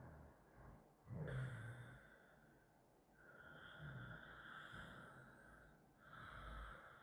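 A sleeping person snoring quietly: three slow snoring breaths, one about a second in, a longer one from about three seconds in, and another near the end.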